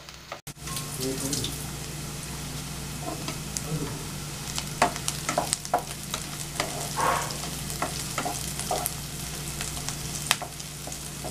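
Sliced onions, curry leaves and green chillies sizzling in oil in a black-coated kadai as a spatula stirs and scrapes them, with scattered sharp clicks of the spatula on the pan. The onions are only half browned, still being sautéed toward a reddish brown. A steady low hum runs underneath.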